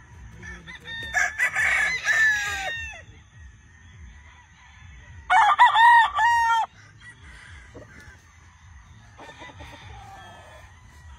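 Gamefowl roosters crowing: two loud crows, each lasting a second and a half or more, one about a second in and one at the middle, then a fainter crow near the end.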